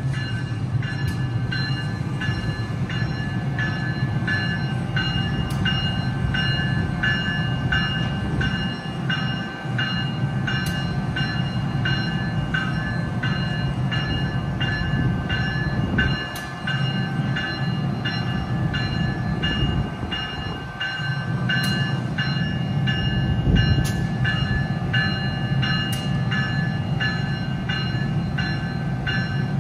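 NJ Transit electric locomotive standing on a bridge, its bell ringing steadily about twice a second over a low, steady rumble from the locomotive.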